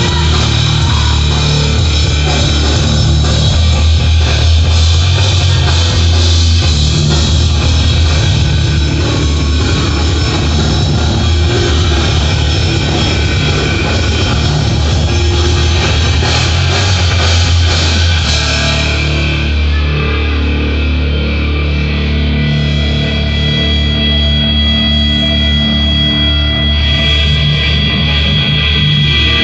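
Loud rock music with drum kit and guitar; the cymbal-heavy drumming thins out about two-thirds of the way through, leaving the guitar more to the fore.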